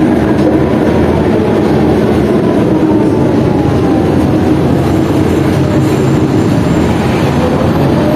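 Articulated Ikarus bus driving, heard from inside the passenger cabin: a steady diesel drone and road rumble, with a faint drivetrain whine that falls in pitch over the first few seconds and rises again near the end.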